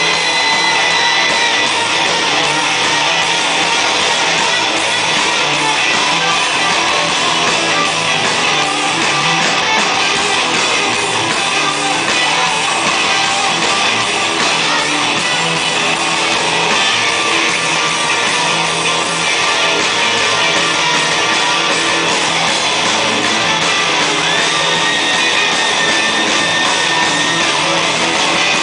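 Loud live rock band with electric guitars playing.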